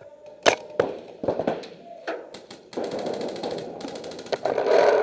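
Paintballs striking an inflatable bunker in scattered sharp smacks, then rapid paintball-marker fire from about halfway in, louder near the end.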